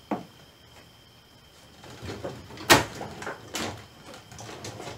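Knocks and clunks of car interior parts being handled and pulled during stripping of the dashboard area: one sharp knock at the start, then a cluster of knocks a couple of seconds in, the loudest near the middle.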